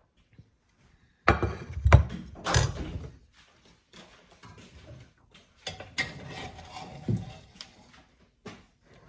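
Serving utensils and dishes clattering as rice is dished out onto plates. About a second in there is a burst of knocks and scraping, the loudest part. Lighter clinks and scrapes follow in the second half.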